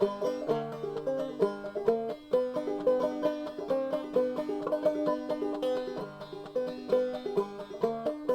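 Background music: a banjo picking a fast, rhythmic tune.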